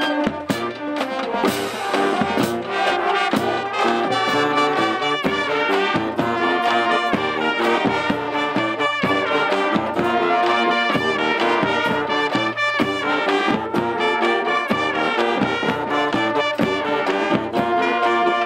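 High school band playing a tune: trombones, trumpets, saxophones and clarinets over a steady beat of drums and crash cymbals.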